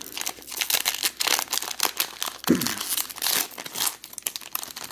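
Plastic wrapper of a Panini Absolute Football fat pack being torn open by hand, crinkling and ripping in a dense run of crackles.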